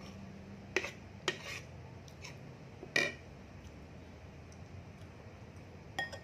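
Metal spoon and fork clinking against a plate during a meal, five or six short clinks, the loudest about three seconds in.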